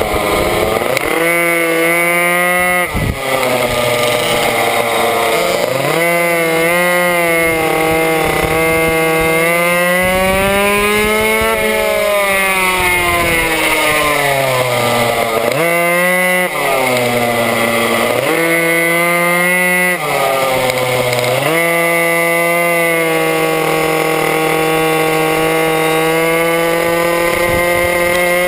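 Minimoto's small two-stroke engine heard up close from the bike itself, revving hard. The pitch drops sharply about six times as the rider shuts off for corners, and climbs again each time he gets back on the throttle.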